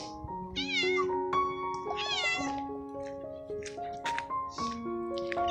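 Tabby cat meowing twice, each a drawn-out call that rises and then falls in pitch, over background music of steady held notes.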